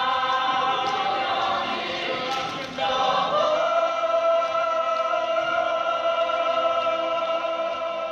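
A group of voices singing long held chords. The chord changes about three seconds in, and the new chord is held steadily.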